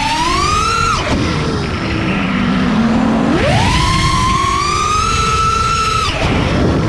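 FPV quadcopter's brushless motors whining, heard onboard over a low rush of air. The pitch climbs, drops to a low hum about a second in as the throttle is cut, then climbs sharply again about three seconds in and holds high before dropping once more near the end.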